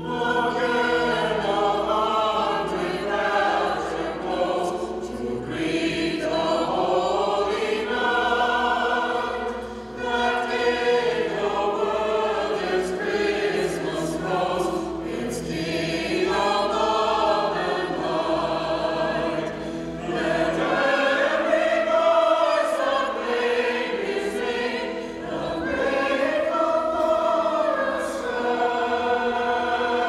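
A mixed choir of men's and women's voices singing a Christmas choral piece, with low held accompaniment notes underneath that drop out about two-thirds of the way through.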